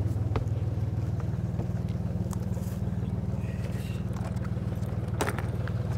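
Ferry boat's engine idling alongside the quay, a steady low throb, with a sharp knock about five seconds in.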